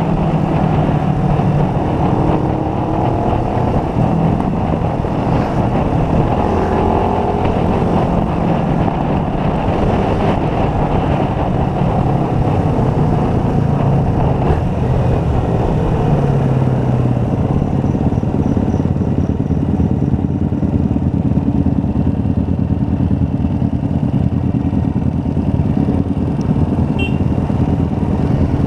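Motorcycle engine running on the move, its pitch rising and falling a little in the first few seconds, then holding steady under a loud rush of road noise.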